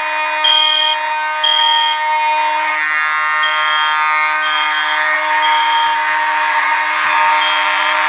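Fire alarm system sounding after a pull station is pulled: a continuous buzzing horn tone with a higher tone beeping over it about once a second, the beeps dropping out for a moment partway through.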